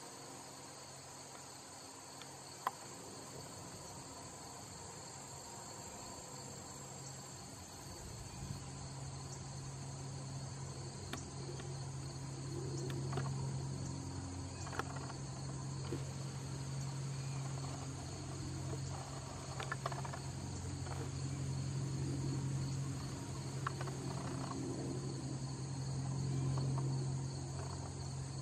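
A steady, high, pulsing chorus of insects chirping in the grass. About a third of the way in, a steady low hum joins it and becomes the loudest sound, with a few faint clicks here and there.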